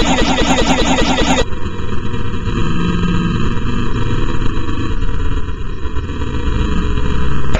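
Heavily distorted, effects-processed audio. A fast stuttering loop runs for about a second and a half, then breaks into a harsh, filtered, rumbling noise with parts of its pitch range cut out.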